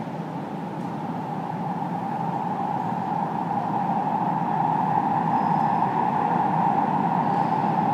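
Athens Metro train approaching through the tunnel, heard from the platform as a steady rumbling rush that grows gradually louder.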